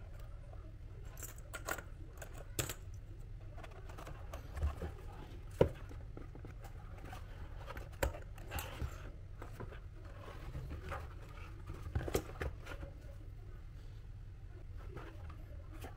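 Cardboard pieces and tools being handled: scattered light knocks and clicks with some scraping, the sharpest knock about five and a half seconds in, over a steady low hum.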